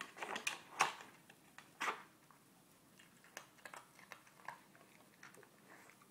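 Plastic pieces of a Nina Ottosson Dog Brick puzzle board knocking and scraping as a Cavalier King Charles Spaniel paws and noses at them. There is a quick run of clicks in the first second and a louder knock near two seconds in, then lighter scattered ticks.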